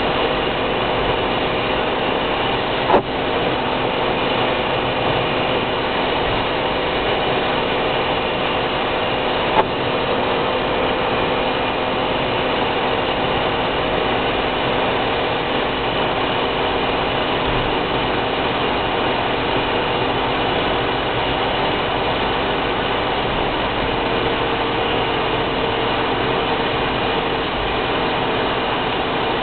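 Steady road and engine noise inside a car's cabin at motorway speed, tyres running on a wet road. Two short sharp clicks, about three seconds in and again near ten seconds.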